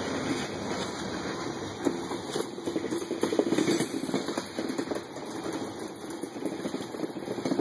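Freight train of covered hopper cars rolling past at close range: a steady rumble of steel wheels on the rails with rapid clanks and clicks, swelling louder about three seconds in.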